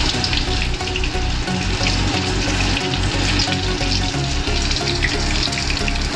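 Batter-coated chicken pieces deep-frying in hot oil, sizzling and crackling steadily.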